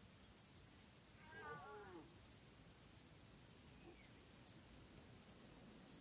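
Very faint: a Pallas's cat gives a short cry falling in pitch about a second in, over even high insect-like chirping at about two chirps a second.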